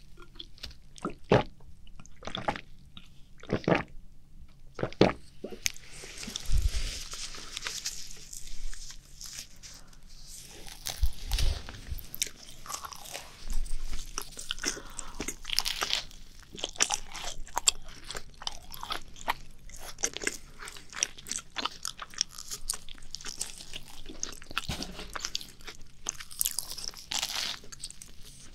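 Macarons being bitten and chewed close to a binaural microphone, the crisp shells crunching and crackling. A few separate sharp clicks come first, then dense, continuous crunching and chewing.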